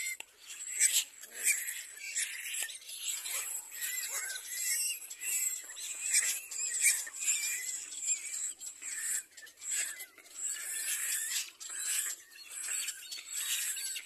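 Little black cormorant nestlings begging: a rapid, irregular run of short, high-pitched, noisy calls that goes on without a break.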